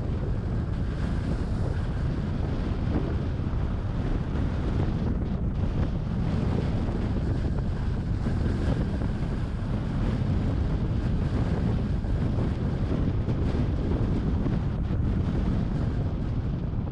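Wind buffeting the microphone while a car drives, a steady low rumble with road noise underneath.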